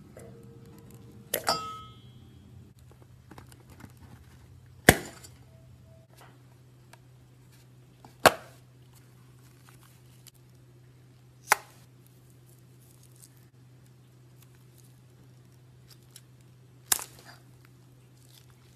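Ingredient-filled balloons popping one after another as they are cut open over a metal mixing bowl: five sharp pops a few seconds apart, each with a short tail, over a steady low hum.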